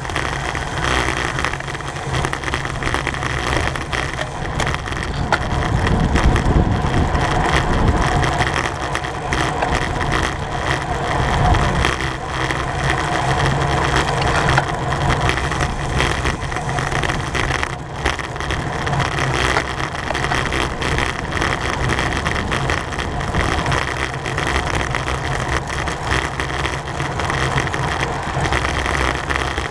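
Wind rush and road rumble from a racing bicycle at speed, with a louder low rumble about six seconds in.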